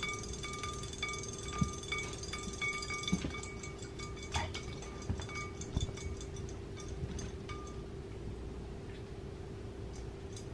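Battery-powered robotic toy fish swimming in a glass bowl of water: its small tail motor hums steadily and ticks about twice a second. After about three seconds the regular ticking gives way to scattered, irregular clicks.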